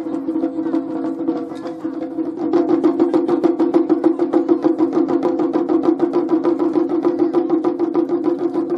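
Japanese taiko ensemble drumming: seated players beating tilted barrel drums and a small rope-tensioned drum in a fast, steady run of strokes, getting louder about two and a half seconds in.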